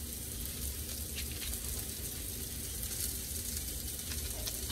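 Onions frying in a pan on the stove: a steady sizzle with scattered faint crackles.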